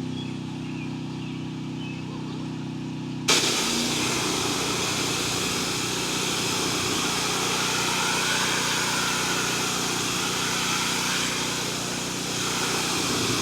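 Pressure-washing rig's engine running steadily. About three seconds in, a loud water spray starts suddenly and keeps going, hissing over the engine as the fence is rinsed.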